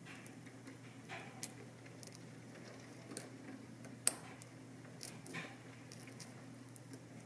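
Faint scratching and small metallic clicks of a lock pick working the sliders inside a Vidmar slider lock, with a few scattered clicks and one sharper click about four seconds in.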